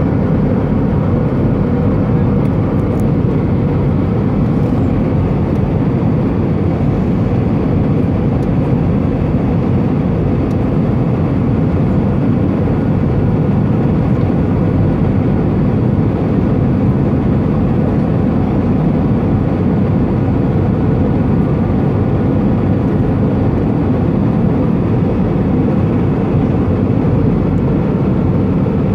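Airbus A320 cabin noise during descent on approach: the steady rush of the engines and airflow heard through the fuselage from a seat over the wing.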